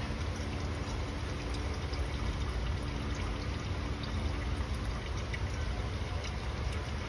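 Used engine oil trickling steadily in a thin stream into a drain pan during an oil change, over a low, steady background rumble.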